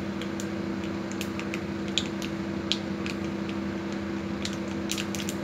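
Whole spices frying in hot mustard oil in a kadai: a steady sizzle with scattered sharp pops as the black mustard seeds begin to crackle, a sign that the tempering is ready. A steady low hum runs underneath.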